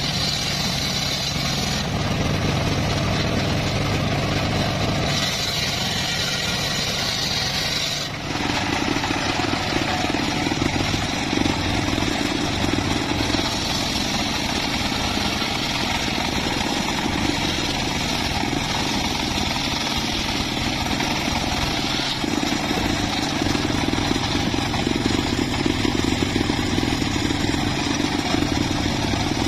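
Homemade circular sawmill running, its large blade cutting through teak wood with the steady drone of the motor that drives it. The sound dips briefly and shifts about eight seconds in.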